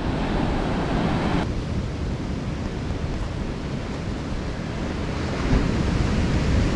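Heavy ocean surf breaking on a rocky shore, with wind buffeting the microphone. The high hiss drops off abruptly about a second and a half in, and the low wind rumble grows stronger near the end.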